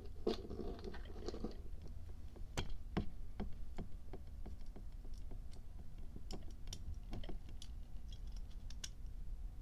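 Irregular light clicks and taps of small metal lighter parts as the Evans Spitfire actuating mechanism is handled and a fulcrum rivet is pressed into place by hand. A brief rustle comes in the first second or so.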